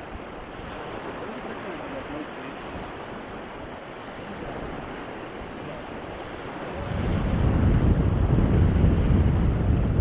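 Steady outdoor noise of wind and surf. About seven seconds in, wind starts buffeting the microphone with a loud low rumble.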